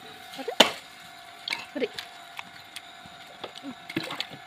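Halved tender green coconuts being handled and set down on concrete: one sharp knock about half a second in, then a few lighter clicks and taps.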